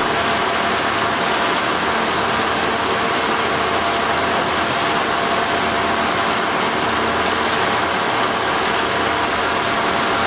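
Track-maintenance machine on a railway line running steadily: a constant loud mechanical noise with one steady mid-pitched hum through it.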